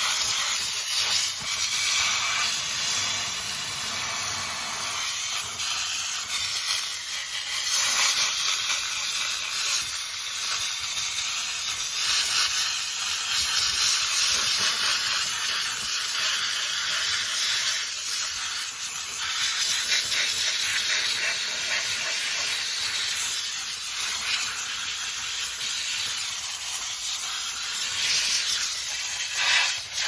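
Dry steam jetting from a Vaportech steam cleaner's wand onto an air conditioner's outdoor coil to defrost it. A continuous hiss that swells and eases a little in strength.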